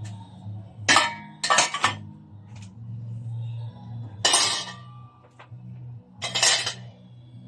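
Metal tools and parts of a brake booster clinking and knocking against each other in a few separate bursts of sharp metal-on-metal strikes, some with a short ring.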